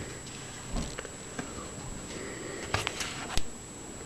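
Light handling noise of a Sony Ericsson W995 phone being picked up from paper: a few soft clicks and taps, the clearest about three and a half seconds in, over a faint steady high-pitched whine.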